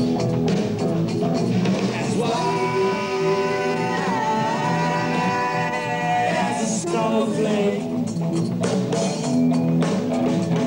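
Rock band playing: electric guitar, bass and drums, with vocals. In the middle a singer holds one long note for about four seconds, wavering slightly, before the full band returns.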